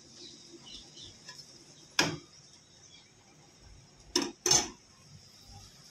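Gas stove burner knob being turned off: a sharp click about two seconds in, then two more clicks close together just after four seconds.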